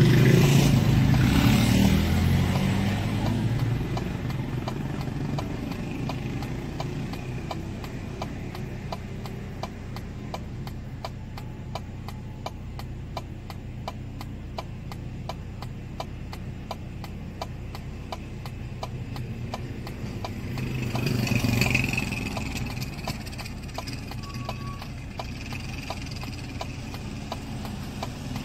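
Car engine idling, with the indicator flasher ticking rapidly and evenly over it. Another vehicle passes about two-thirds of the way through.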